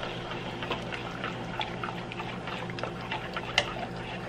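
Beetroot juice being poured into a pot of broth that is nearly at the boil, a steady trickle over fine bubbling with many small crackles.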